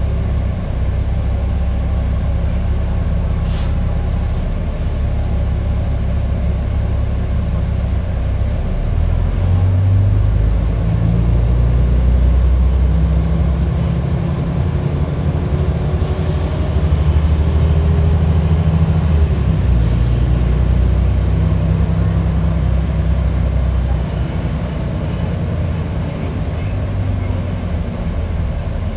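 Volvo B10TL double-decker bus's diesel engine and drivetrain running while the bus drives, heard from inside the upper deck as a steady low rumble. The engine note swells and slides in pitch as the bus accelerates around the middle, then eases off near the end.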